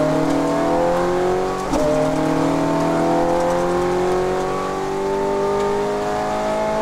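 Ferrari 430 Scuderia's 4.3-litre V8 accelerating hard, heard from inside the cabin. The engine note climbs steadily, drops briefly with a quick upshift about a second and a half in, then climbs again through the next gear.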